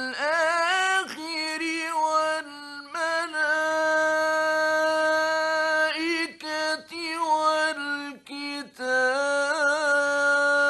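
A male Quran reciter chanting in the melodic mujawwad style, holding long drawn-out notes with ornamented turns and breaking off briefly between phrases, from an early-1960s radio recording.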